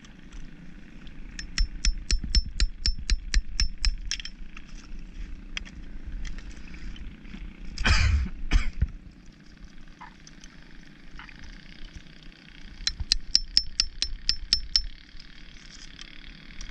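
Steel hammer striking a blade wedged into an oyster cluster, chipping the oysters apart: quick, even metal-on-metal taps, about four or five a second with a ringing clink, in two runs near the start and near the end. A short loud noise comes about halfway through.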